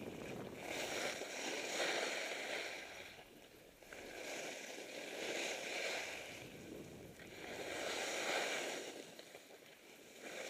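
Skis hissing and scraping over packed snow as the skier carves turns, the sound swelling and fading about every three seconds.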